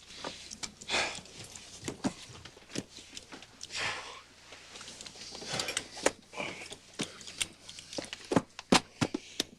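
Rustling, breathing and scattered small clicks and knocks from a person shifting about and settling into an airliner seat. The knocks come thicker and louder near the end.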